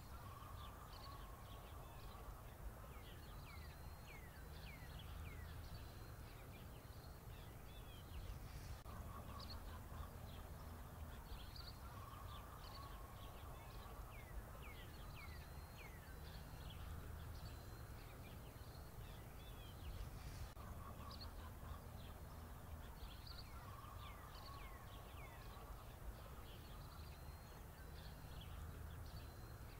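Faint birdsong: many quick downward-sweeping chirps, with a warbling call that comes back every few seconds, over a steady low hum.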